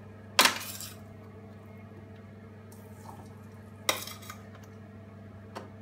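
Metal spoon clanking and scraping against a stainless steel roasting tray and frying pan as vegetables are scooped across: two loud clatters, about half a second and four seconds in, and a light click near the end.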